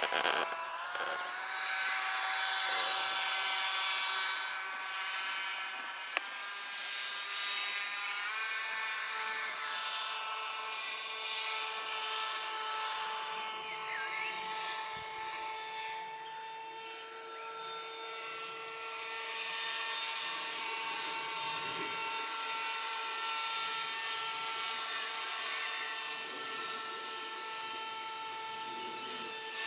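The small motor and propeller of an RC model paramotor whining steadily in flight. The pitch steps up a few times in the first eight seconds and then holds. There is one sharp click about six seconds in.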